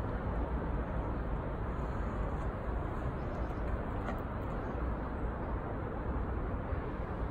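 Steady outdoor background noise, an even low rumble with no distinct events.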